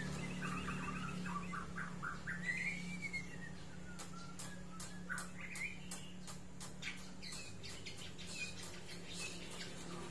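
White-rumped shama (murai batu) calling in short chirped phrases, with one whistle that rises and falls about two to three seconds in. A run of sharp clicks comes in the middle, over a steady low hum.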